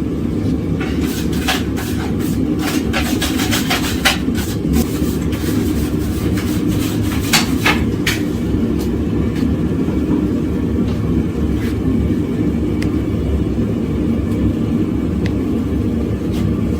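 Propane forge burner running steadily, with a run of light clicks and scrapes during the first half.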